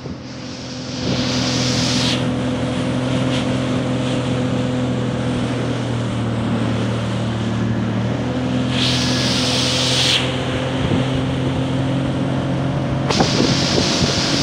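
Motorboat engine running steadily under way, with water rushing past the hull. Gusts of wind hit the microphone about a second in, around the middle and again near the end.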